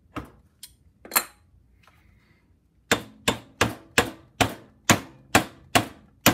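Mallet blows driving a tight-fitting handwheel onto the keyed feed-screw shaft of a cast-iron compound table, seating it so that enough thread sticks out for the lock nut. There are three separate taps in the first second or so, then a steady run of strikes about two and a half a second.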